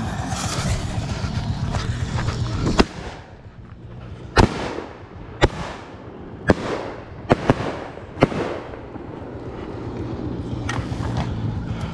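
Fireworks going off: about six sharp bangs, each with an echoing tail, spread over some four seconds. A steady low engine rumble runs at first, stops with a click about three seconds in, and returns near the end.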